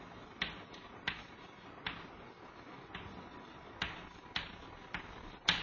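Chalk tapping against a blackboard while words are written by hand: about nine short, sharp clicks at irregular spacing, over a faint room hiss.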